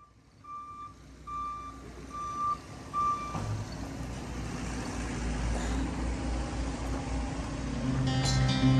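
A vehicle's reversing alarm beeping four times at an even pace, cut off by a knock, followed by a steady low engine rumble that slowly grows louder. Guitar music comes in near the end.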